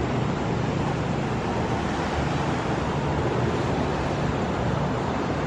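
Steady rushing ambient noise with a low rumble underneath, even in level throughout, with no single event standing out.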